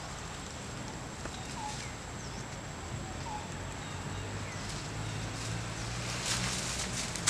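Forest ambience: a bird repeats a short, faint rising call about every second and a half over a thin steady high tone, and dry leaf litter crackles and rustles near the end.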